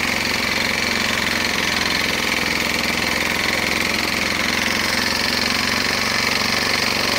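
Single-cylinder four-stroke Briggs & Stratton engine of an old Hayterette petrol lawnmower running at a steady speed.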